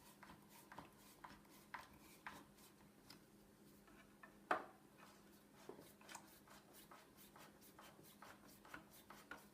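Faint scattered clicks and taps of small parts and screws being handled while the second belt guard is fastened onto a Juki DDL-8100 industrial sewing machine, with one louder knock about four and a half seconds in.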